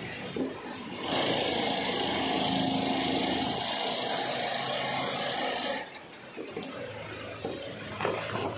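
HighTex 53800 long-arm industrial sewing machine running at speed for about five seconds, stitching a baffle into a woven polypropylene bulk bag, then stopping. Afterwards the stiff woven fabric rustles as it is handled.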